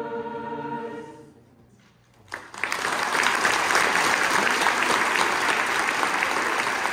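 A choir's final held chord fades away about a second in; after a short hush, the audience starts applauding and keeps clapping steadily.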